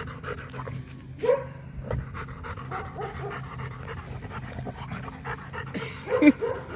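Rottweiler panting rapidly and steadily while nosing in the dirt, with two louder short sounds about a second in and near the end.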